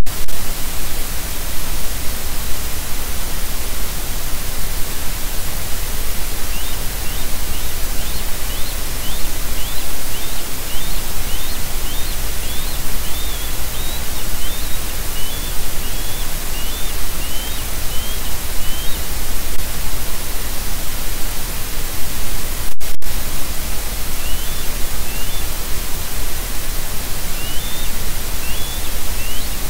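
Loud, steady hiss from an outdoor nest-cam microphone, which cuts out for a split second about two thirds of the way through. Over it a bird gives short, high, rising chirps, about two a second, in a long run and then again near the end.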